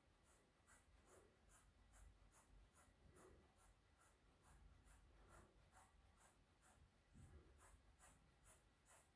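Scissors chewing through a thick braid of hair in small, repeated, faint snips, about two to three a second. A soft low bump about seven seconds in.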